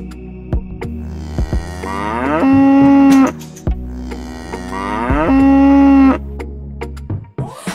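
A cow mooing twice: two long moos, each rising in pitch as it starts and then holding one steady note. Steady background music plays beneath them.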